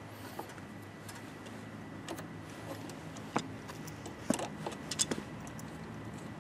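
Small metal clicks and taps, a handful scattered irregularly, the loudest about four and five seconds in, as pliers and a ground-wire connector are worked against a portable generator's frame.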